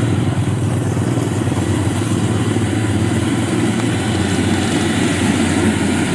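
Kubota DC-70 Plus combine harvester's diesel engine running steadily as the machine cuts and threshes rice, with the even rush of the threshing drum and straw being blown out.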